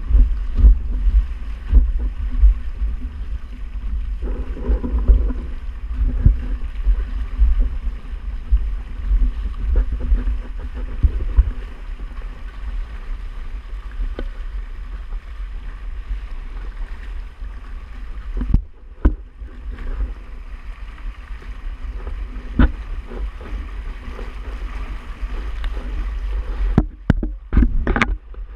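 Wind buffeting the microphone with a heavy low rumble, over water rushing and slapping against the hull and outrigger floats of a Hobie Tandem Island sailing kayak under sail. Frequent sharp wave slaps run through it, and the sound briefly drops out twice near the end.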